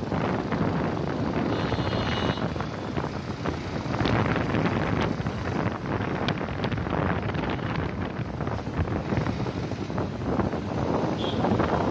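Wind buffeting the microphone on a moving motorbike, over the rush of surrounding road traffic. A brief high-pitched tone sounds about two seconds in.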